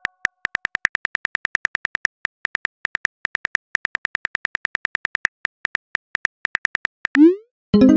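Smartphone keyboard typing clicks: a quick, steady patter of key taps as a text message is typed. About seven seconds in, a short rising whoosh of the message being sent, and a chime begins right at the end.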